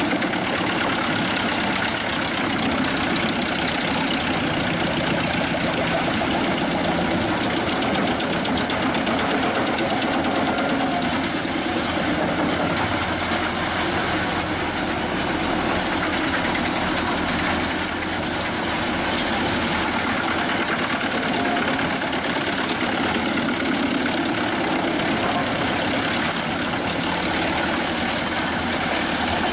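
A 360 hp New Holland tractor's engine and the Pezzolato PTH 1000/1000 G drum wood chipper it drives through the PTO, running steadily and loudly, with a brief slight dip about two-thirds of the way through.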